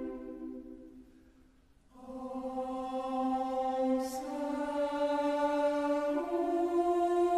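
Choir singing long held chords in a slow sacred oratorio. The opening chord fades almost to silence, then a new chord swells in about two seconds in and shifts twice more, with a brief sibilant near the middle.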